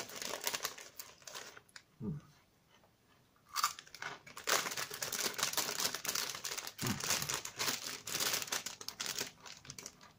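Close, crackly crunching and rustling from a packet of Wheat Crunchies spicy tomato wheat snacks being handled and eaten. It comes in two spells: a short one at the start, and a longer, denser one from about four seconds in until near the end.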